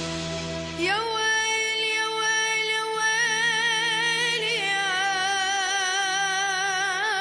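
A child singing a mawwal over a steady accompanying drone. The voice slides up into one long held note about a second in, then takes on a wide, wavering vibrato. Midway it steps down in pitch and holds on.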